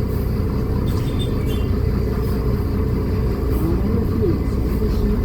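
Mercedes-Benz O500U BT5 city bus's engine and Voith automatic drivetrain running under way, a steady low drone heard from inside the bus.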